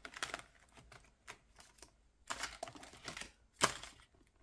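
Plastic page sleeves and the metal rings of a ring binder being handled as pages are taken out: a scatter of light clicks and rustles, with the sharpest click about three and a half seconds in.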